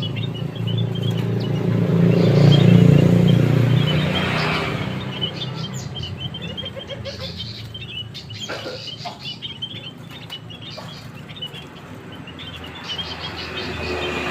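Many small birds chirping at once in a steady twitter. A vehicle passes about two seconds in, its rumble swelling and fading, and another comes up near the end.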